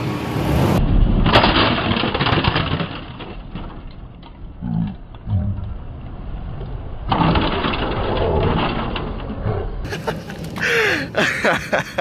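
A car driving over a portable plastic boombox, its tyres crushing and cracking the case, with engine and tyre noise; it is loudest about a second in and again past halfway.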